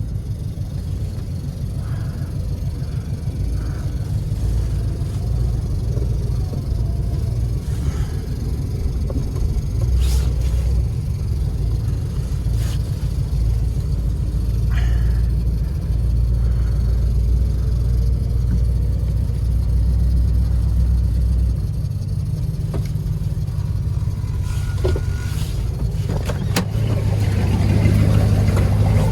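Classic Fiat 124's engine running at low speed as the car is crept and maneuvered, with a few light clicks over the steady rumble. It gets louder near the end.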